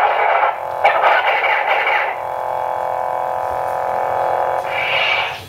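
Parks Obi-Wan replica lightsaber's sound board playing through its small speaker: rough buzzing effect bursts over the blade hum in the first two seconds, then the steady hum, then a brief rising power-down sound near the end, where the sound stops.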